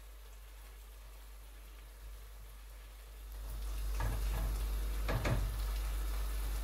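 A wooden spoon stirring food in a nonstick pot, with two short scraping strokes about four and five seconds in. Under it is a low rumble with a hiss that swells partway through and cuts off suddenly at the end.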